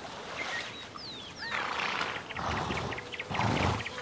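Brumby horses snorting: three loud, breathy blows, each about half a second, starting about one and a half seconds in. Short falling bird whistles sound in the background.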